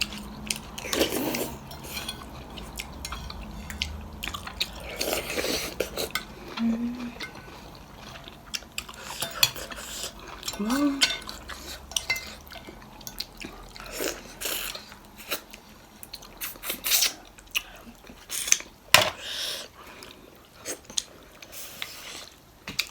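Cutlery clinking and scraping against a bowl and dishes while eating, in scattered sharp clicks.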